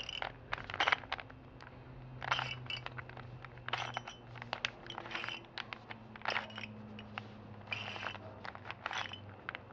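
Plastic 3x3 Rubik's Cube layers being twisted by hand: short clicking, scraping bursts, about eight turns spaced roughly a second apart.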